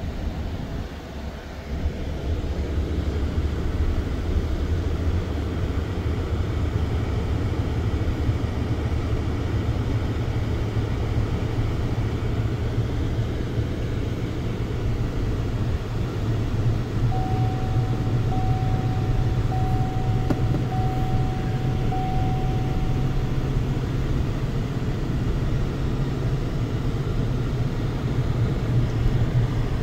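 Steady low rumble of a pickup truck's engine and road noise heard from inside the cab at slow town speed. It swells up over the first couple of seconds as the truck pulls away. Midway, a thin tone sounds about five times in a row.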